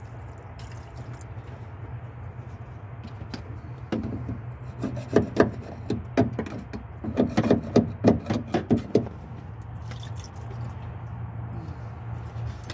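Hand work in the metal fuel pump access opening of a car floor: irregular sharp knocks and clicks between about four and nine seconds in, over a steady low hum.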